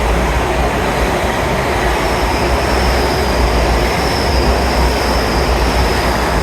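A train passing close by along the platform: a loud rush of wheels on rail over a deep rumble, which began abruptly just before. From about two seconds in, a faint high steady whine rides on top.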